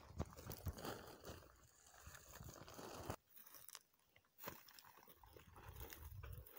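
Dry plant stalks and roots crunching and crackling as they are pulled from the soil and pushed into a plastic sack, in irregular bursts with a short lull in the middle.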